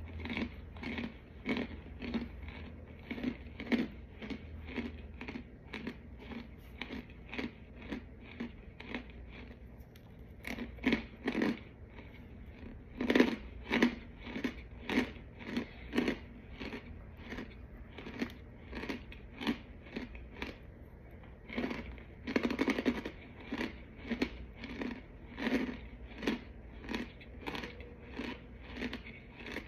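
Close-up chewing of dry, crunchy white powdery chunks, a steady run of crunches about one and a half a second. A few louder bites stand out, about ten, thirteen and twenty-two seconds in.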